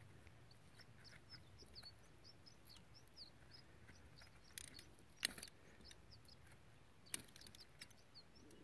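Faint chirping of small birds, many short high chirps scattered throughout, with a few sharp clicks around the middle from metal hose clamps and fittings being handled.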